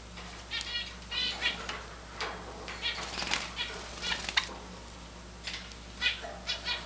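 Java sparrows giving short, high chirping calls in quick runs, with a burst of wing flutter about three seconds in.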